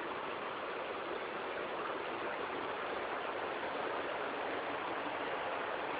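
Steady rush of flowing water, like a stream, without change in level.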